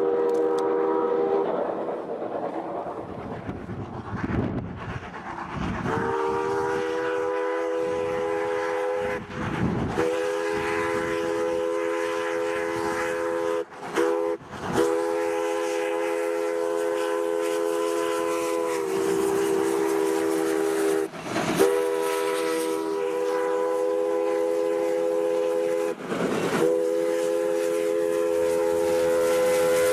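Steam locomotive's chime whistle sounding several notes at once in long blasts. A short blast at the start, then after a few seconds of rushing steam and rail noise, long held blasts broken only briefly a few times.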